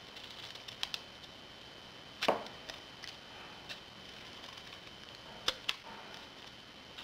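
Small scissors snipping into a scalloped cardstock circle: a few separate crisp snips. The loudest comes about two seconds in, and two more come close together a little after five seconds.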